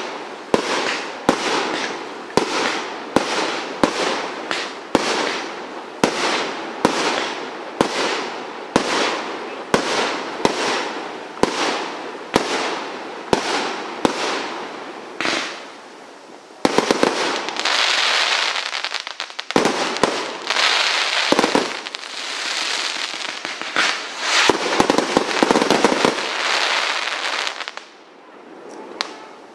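Primed Pyrotechnics Glittering Prize single-ignition firework barrage cake firing. For the first half it fires a steady run of shots about once a second, each with a short tail. About halfway through it breaks into a dense, continuous run of rapid shots and crackle that stops shortly before the end.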